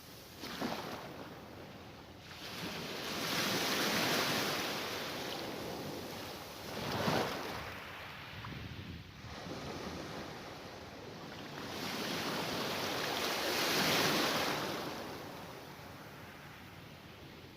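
Mediterranean Sea waves washing onto the shore, the surf swelling and falling back in slow surges a few seconds apart, the sharpest about seven seconds in.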